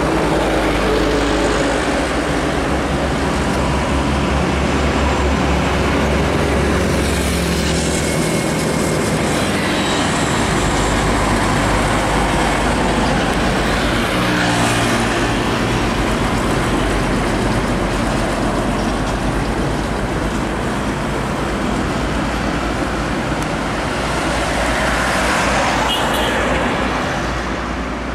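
Heavy diesel trucks and container tractor-trailers passing on a busy road: steady traffic noise with a low engine drone, swelling as vehicles come close about halfway through and again near the end.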